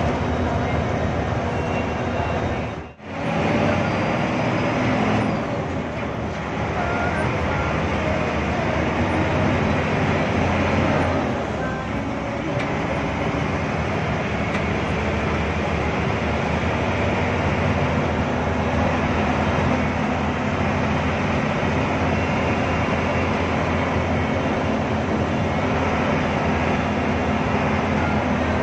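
Hino AK8 bus's turbodiesel engine running steadily under way, heard from inside the front of the cabin over tyre noise on a wet road. The sound dips briefly almost to nothing about three seconds in.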